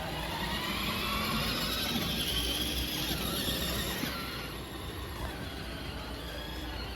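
Ride car running along its track with a whine that rises in pitch over the first three seconds, then eases off about four seconds in, over a steady rumble.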